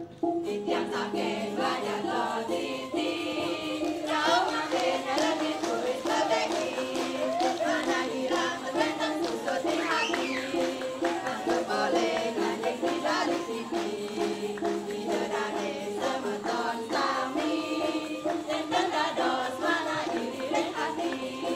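A group of women singing a cheer song together over backing music, a repeating melody at a steady beat.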